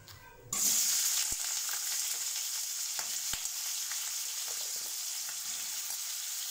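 Potato slices frying in hot oil in a steel kadai. A loud sizzle starts suddenly about half a second in and holds steady, with a few light knocks.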